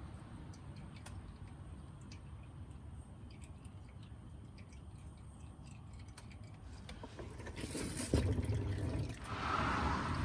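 Liquid dripping and trickling over a low steady rumble, with a louder rush of noise and a thump in the last few seconds.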